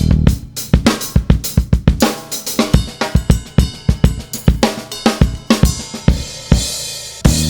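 Outro music with a driving drum kit: kick, snare and cymbals hitting several times a second, with a cymbal crash near the end.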